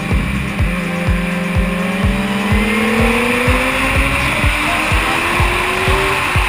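Yamaha FZ1's inline-four engine pulling hard with a Mivv Suono exhaust, its pitch rising slowly and steadily through a long stretch of acceleration. Music with a steady beat of about two thumps a second plays over it.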